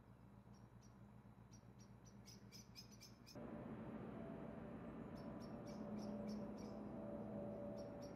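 Faint small-bird chirping: short high peeps in irregular clusters. Beneath it a low steady hum grows louder about three seconds in and carries a low drone.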